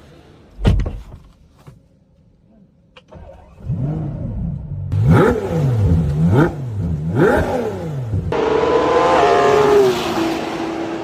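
Ferrari V12 engine being revved in three or four sharp blips, the pitch jumping up and falling back each time. It then runs in a longer stretch whose pitch slides down and settles to a steady note. A sudden loud thump comes about a second in.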